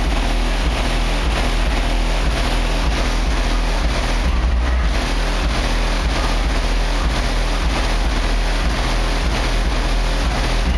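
Car audio subwoofers in a Chevrolet truck pounding out deep bass at competition sound-pressure level, about 124 dB on the meter. The low notes step every second or so, under a dense noisy rush across the higher range.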